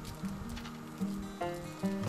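Background music: a melody of held notes that change pitch about twice a second.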